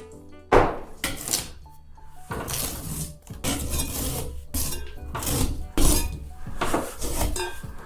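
Old ceiling tiles being pried off with a scraper: a rapid run of scraping, cracking and knocks as the panels break loose and fall.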